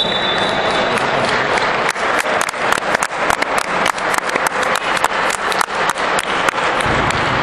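Scattered hand clapping from a small group of spectators in a sports hall, starting about two seconds in as quick, uneven claps and stopping near the end, over a steady background of hall noise.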